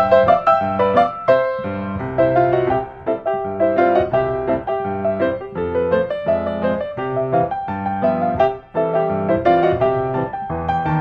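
Background piano music: a run of piano notes played one after another at an even pace.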